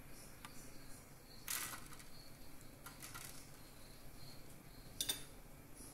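Faint steady hiss of pots cooking on a gas stove, with a short rush of noise about one and a half seconds in and a single click about five seconds in.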